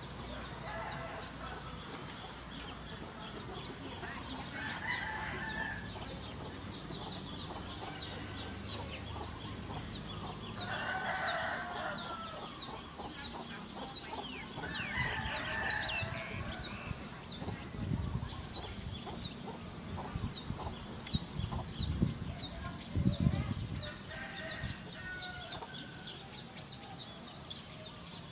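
Domestic roosters crowing several times, with hens clucking, over a high chirp repeating about twice a second. A few low thumps in the second half are the loudest sounds.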